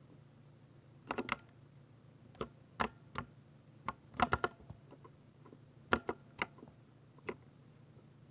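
Keys being pressed one at a time on a 60% keyboard: sharp clacks in small irregular clusters, around a dozen presses, not continuous typing.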